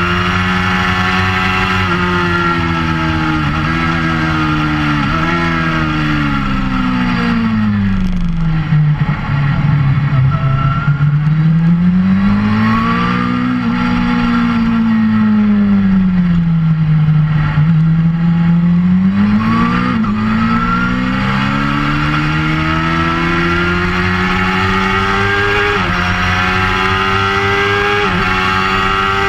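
Suzuki GSX-R600 K4's inline-four engine with an aftermarket Werx exhaust, heard from on board while riding at moderate revs. The engine note holds steady, falls and climbs twice in the middle, and jumps in pitch briefly a few times, as at gear changes.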